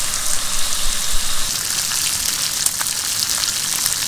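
Bacon and sausages frying in oil in a Jetboil camping skillet: a steady sizzle with fine crackles and pops.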